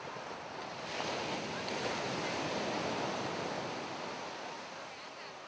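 Sea surf: a steady rushing wash that swells about a second in and slowly eases off.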